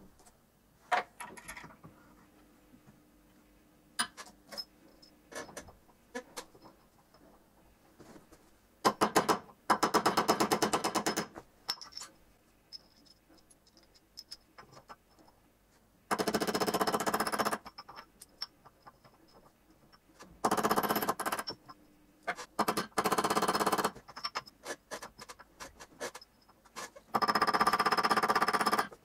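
Hand file rasping over metal in five bursts of a second or two, with scattered light metal clicks and taps between them: a copper tube bushing being filed flush in an aluminium bearing block.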